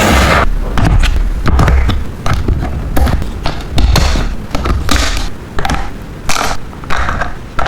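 Miniature toy kitchen pieces being handled: irregular taps and clatters, roughly one or two a second, with rustling in between.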